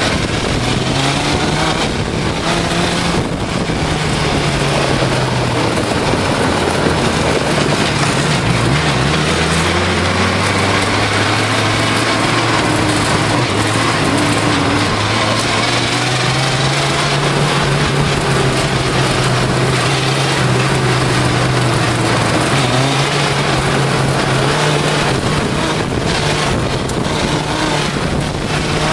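Suzuki GSX-R600 inline-four motorcycle engine powering a homebuilt off-road buggy, heard from on board as it is driven along, its pitch rising and falling with the throttle. A steady rushing noise from wind and tyres on the gravel runs underneath.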